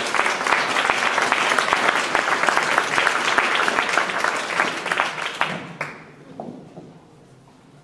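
Audience applauding: dense clapping that dies away about six seconds in, leaving only faint background noise.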